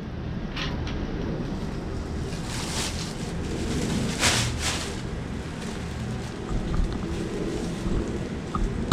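Steady wind rumble on the microphone, with a few short hissing bursts.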